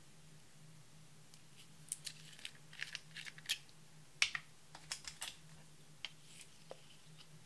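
Light clicks and ticks as a small glitter bottle's cap is twisted open and a wooden stick scrapes and taps inside the bottle to scoop out the glitter. The clicks come in a quick irregular run through the middle, over a faint steady low hum.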